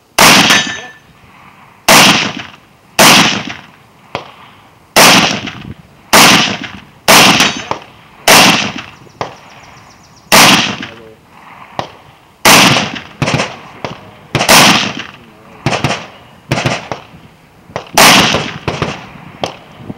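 A string of about sixteen gunshots fired one after another at an uneven pace, roughly one a second, with some quicker pairs.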